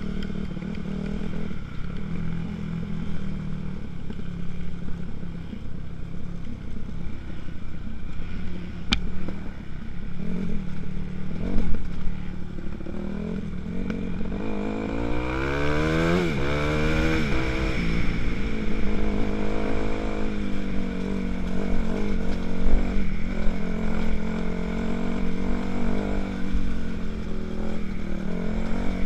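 A 2006 Kawasaki KX250F's single-cylinder four-stroke engine running under a rider on a dirt trail, the revs climbing and falling back about halfway through.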